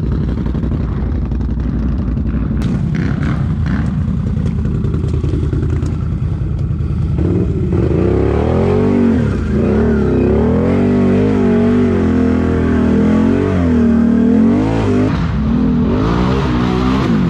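ATV engine running, with a few clanks and knocks a few seconds in. From about seven seconds in it revs, its pitch rising and falling again and again as the throttle is worked on and off.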